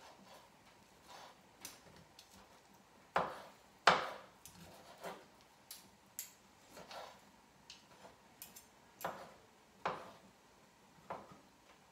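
Knife clicking and knocking on a cutting board while boiled chicken is cut up, in an irregular run of light taps with two louder knocks about three and four seconds in.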